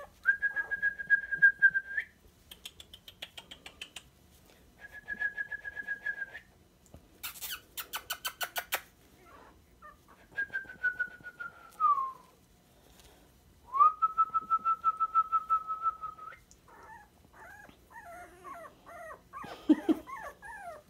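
Three-week-old dachshund puppies whining: several long, even, high-pitched whines of a second or two each, between quick runs of short squeaks, with lower grumbling near the end.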